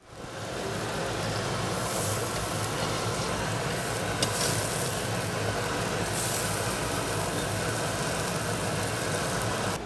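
Charcoal grill fire with tteokgalbi (Korean short-rib patties) sizzling on the grate over it: a steady sizzling hiss that fades in at the start and swells a few times.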